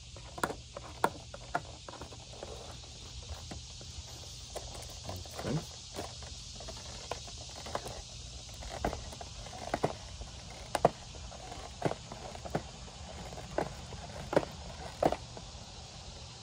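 Packaging being worked open by hand: irregular sharp clicks, crackles and a few louder snaps as it is pried and pulled, over a steady hiss.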